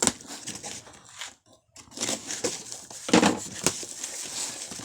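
Packaging being torn and crinkled open by hand: irregular rustling and tearing, quieter at first and louder from about two seconds in.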